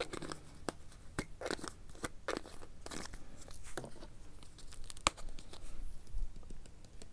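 Handling of spice containers over a plastic bowl: crushed red pepper flakes shaken from a small glass jar, and spice containers set down and picked up on a wooden board, a scatter of small clicks, taps and short rustles.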